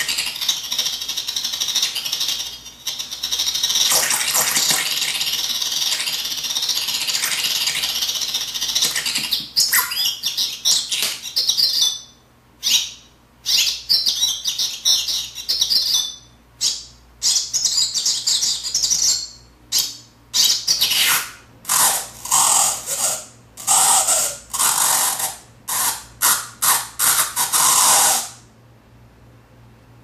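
Circuit-bent 'Sounds of Nature' toy flashlight playing distorted electronic nature sounds: glitchy bird chirps over hiss, with the pitch bent up and down. After about nine seconds the sound breaks into rapid stop-start bursts, then cuts off suddenly near the end.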